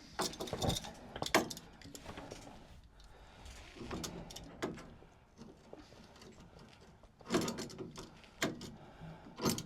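Irregular metallic clicks and clanks of hand tools working on a car's steering track rods as they are wound out to adjust the toe. The knocks come a second or two apart, with a quick run of them near the end.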